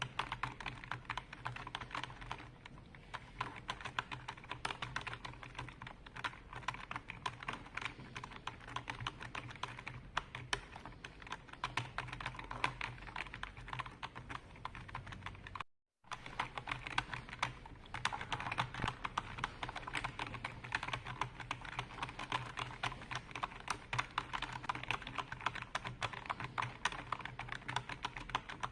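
Computer keyboard being typed on continuously: a rapid, dense run of keystroke clicks. The sound cuts out completely for a split second a little past halfway, then the typing resumes.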